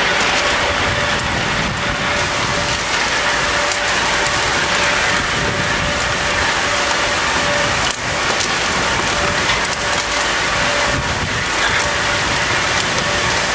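Steady rush of wind on the microphone with rattling from the Infusion rollercoaster train running along its track.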